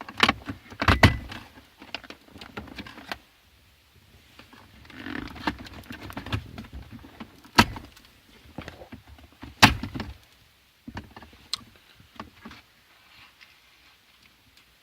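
Irregular clicks, knocks and rustling of a car's gear shift knob and its plastic trim and boot being worked loose by hand, with a few sharper knocks standing out.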